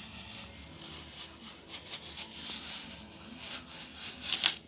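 Paper rustling and rubbing as a sheet of adhesive sticker paper is handled and pressed onto a kraft paper bag, with a sharper, louder crackle of paper near the end.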